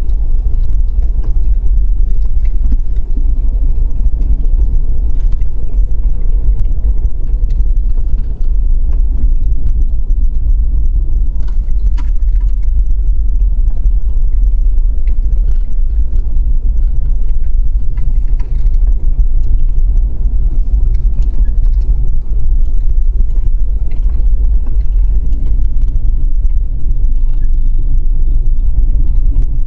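Loud, steady low rumble with faint scattered rattles and clicks, of the kind heard from inside a moving vehicle.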